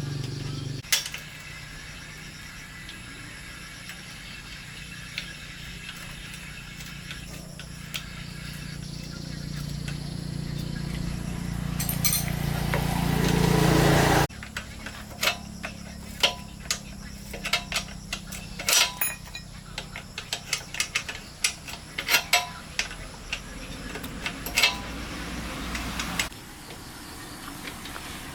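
A low steady mechanical hum that swells over several seconds and cuts off suddenly about halfway through, followed by a run of sharp metallic clicks and clinks.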